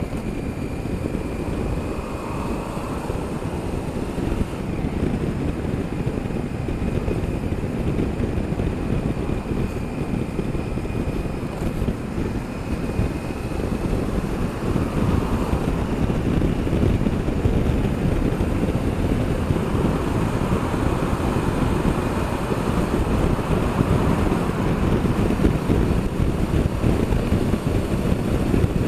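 Wind rushing over the microphone, with a Honda Africa Twin CRF1000L's parallel-twin engine running underneath as the motorcycle rides through traffic. The rush grows a little louder over the second half as speed builds.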